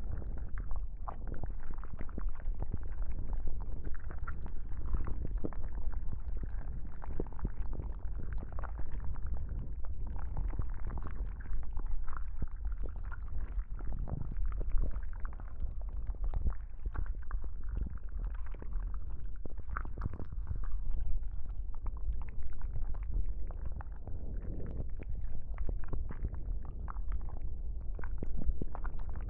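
Close, muffled wet rubbing and squelching on a binaural microphone, standing for tentacles rubbing over the head: a dense run of small crackles over a steady deep rumble.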